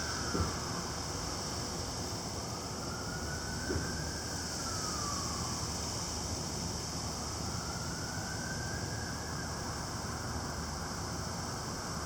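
An emergency-vehicle siren wailing in slow rises and falls, about one cycle every five seconds, over the steady hiss of heavy rain and gusty wind. There are a couple of small knocks.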